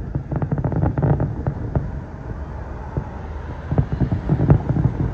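Aerial fireworks going off in a rapid, irregular run of bangs and crackles over a low rumble, the loudest bang about four and a half seconds in.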